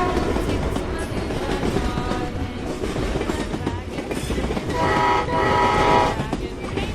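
Train running with a steady rumble and rail clatter, its horn sounding twice about five seconds in, a short blast then a longer one.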